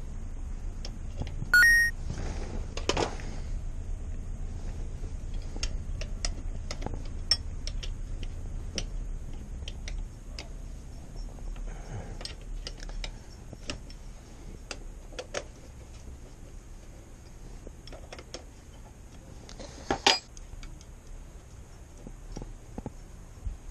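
Hand tools clinking and clicking against metal while working on a motorcycle's rear brake caliper, in scattered light knocks, with a sharp ringing clink about a second and a half in and a louder clank about twenty seconds in.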